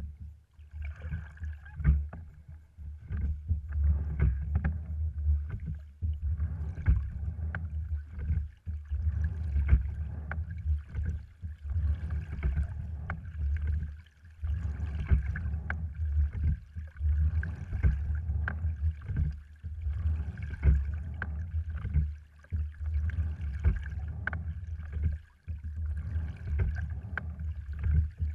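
A sliding-seat rowing wherry under way, its cedar-framed, cloth-covered hull carrying a steady low rumble of water, with sharp knocks from the oars and oarlocks through the strokes and a faint steady whine; the level rises and falls with the strokes.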